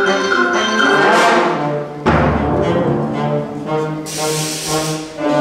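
School concert band playing held woodwind and brass chords. A swell builds into a sudden loud, low percussion hit about two seconds in, and a high cymbal-like wash follows around four seconds in.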